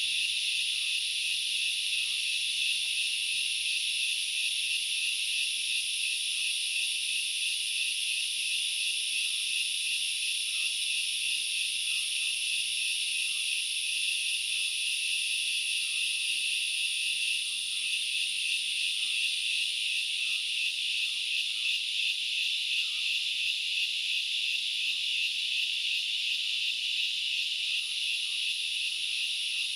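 Dense, steady chorus of insects singing in two high-pitched bands, one very high, without a break. Faint short chirps sound here and there underneath.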